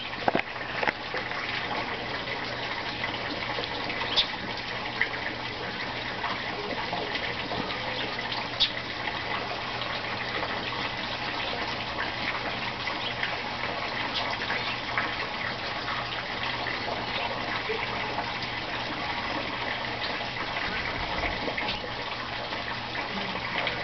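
Steady rushing, water-like noise with a few sharp clicks, most of them in the first ten seconds.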